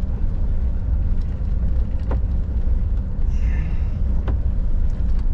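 Steady low rumble inside the cab of a Scania R580 V8 truck rolling down an icy road, with a few sharp rattles from the shaking interior and a brief hiss about three and a half seconds in.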